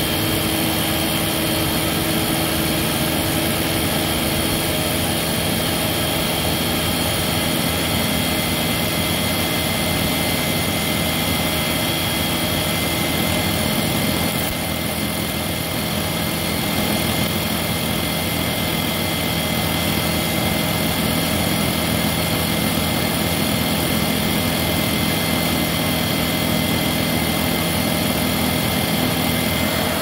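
Hoover WindTunnel V2 (U8121-900) upright vacuum cleaner running steadily at full suction, its nozzle drawing air through a test box. The level dips slightly for a moment about halfway.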